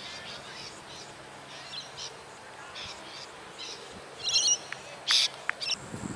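Birds chirping with short, repeated high calls, then a louder burst of sharp calls about four to five seconds in.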